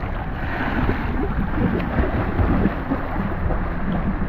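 Swimming-pool water sloshing and churning around a GoPro camera held at and just under the surface, heard as a steady low rumbling wash through the camera's housing.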